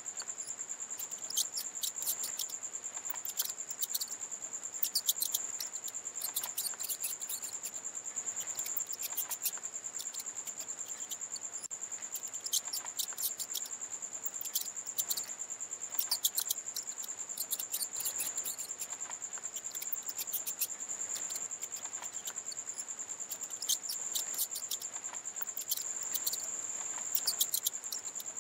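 A steady, very high-pitched insect trill like a cricket's, with clusters of short, high squeaky chirps breaking in every second or few.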